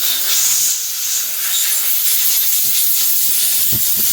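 Long steady hiss of a pressurized spray blasting through a chainsaw carburetor body to clean it out, cutting off sharply at the end.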